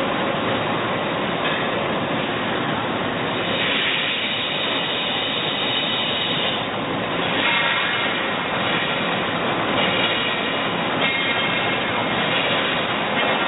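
Doosan Puma ST20G CNC lathe running: a steady noisy hiss with a high whine that comes and goes in stretches of a few seconds.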